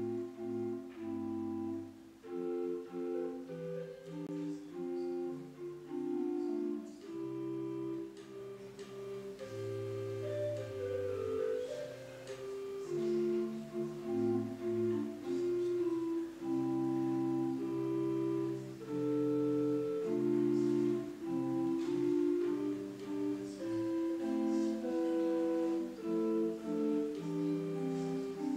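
Slow instrumental music on a keyboard instrument: held chords under a simple melody, the notes changing every second or so.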